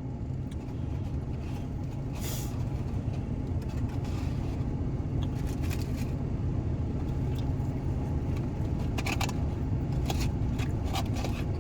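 Steady low hum of an idling car engine, with a few brief clicks and rustles around 2, 9 and 11 seconds in.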